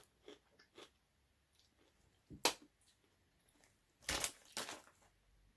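A Takis Blue Heat rolled tortilla chip being bitten and crunched: a single sharp crack about two and a half seconds in, then two louder crunches about four seconds in.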